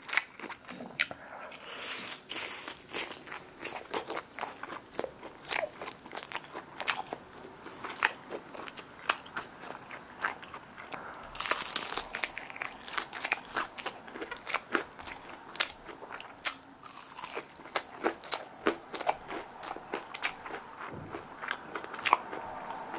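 Crunching and chewing of crispy glazed fried chicken: repeated crisp bites through the coating with irregular crackles throughout.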